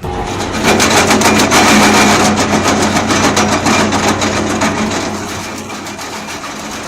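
Heavy machinery running: a steady engine hum under dense, rapid mechanical clatter, loudest in the first few seconds and easing off toward the end.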